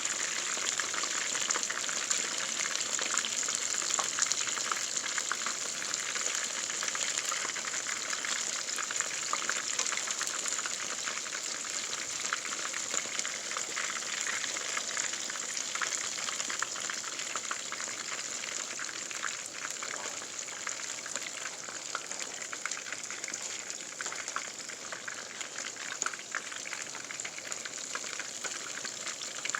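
Food deep-frying in hot oil: a steady, dense crackle and sizzle that eases slightly toward the end.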